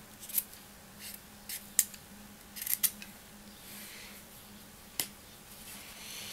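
Chisel-ground knife blade shaving the peel off a raw carrot: short crisp scraping strokes and sharp snicks as strips come away, with a single sharp click about five seconds in.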